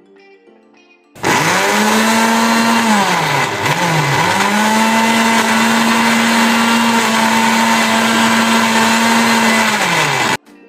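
Panasonic electric blender grinding tomatoes, green chillies and yogurt into a paste. The motor starts about a second in and runs with a loud, steady hum. A couple of seconds later it briefly slows almost to a stop and spins back up, then cuts off suddenly just before the end.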